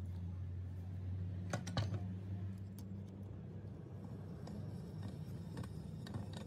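Light metallic clicks and taps of tie rod end parts being handled and set in a hand-turned screw press, most pronounced about one and a half to two seconds in, over a steady low hum.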